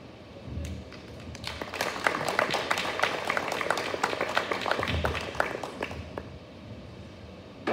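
Small audience applauding, individual claps audible, building about a second and a half in and dying away about six seconds in.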